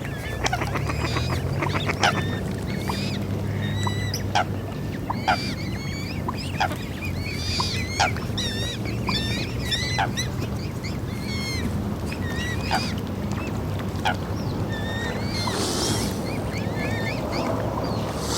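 Swans calling on the water: a steady run of short honks and chattering calls, some sharp and clipped, over a low steady rumble.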